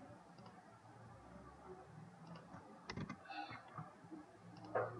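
A few faint clicks of a computer keyboard and mouse, the clearest a little under three seconds in.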